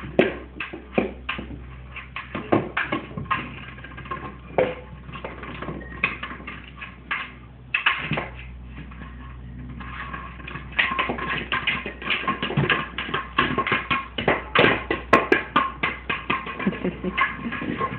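A running egg toy knocking and clattering about as a dog plays with it, in quick irregular knocks and clicks that grow busier about eleven seconds in.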